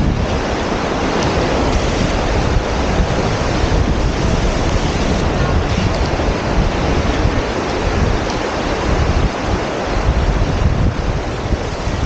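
Small waves washing up a sandy beach in a steady rush of surf, with wind buffeting the microphone.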